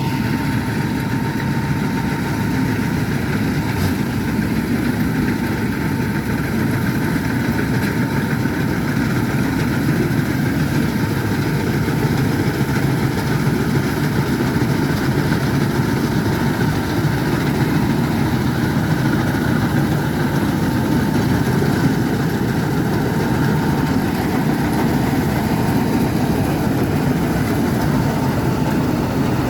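Combine harvester's diesel engine and threshing machinery running at a steady pace.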